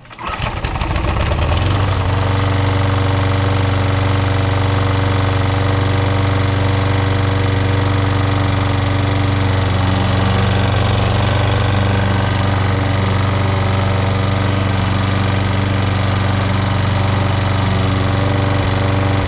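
2005 Toro Super Recycler's Briggs & Stratton Quantum engine catching on a pull start, picking up speed over the first second or so, then running steadily.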